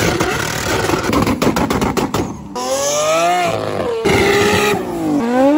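A car engine revving hard through a loud exhaust: crackling at first, then a pitched exhaust note that rises and falls with the revs.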